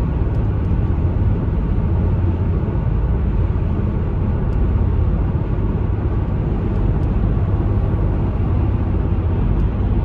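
Steady low road and engine rumble heard from inside a moving vehicle's cab while driving on the highway.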